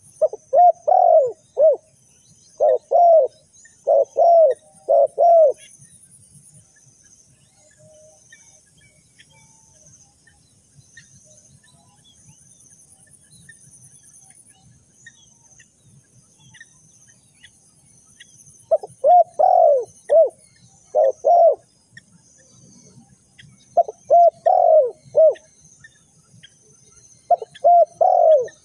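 Spotted dove cooing in repeated phrases of a few short, bent coos. Two phrases come in the first few seconds, then a long pause, then several more phrases in the last third.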